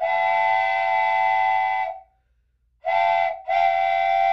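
Wooden train whistle blown three times, each blast a steady chord of several tones: a long blast of about two seconds, a short one, then another longer one.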